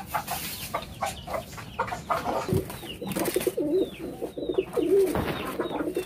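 Domestic pigeons cooing with low, wavering coos from about halfway through, over short high chirps from small birds. At first, chickens clucking with a few sharp clicks.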